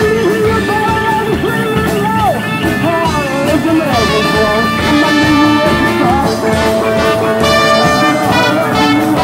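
Rock music from a live band of drum kit and guitars. A melody line slides up and down in pitch in the first half, then settles into held notes.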